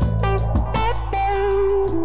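An Americana band plays an instrumental passage: a semi-hollow electric guitar plays a lead with bent notes over bass and drums. About halfway through, one note is held for more than half a second.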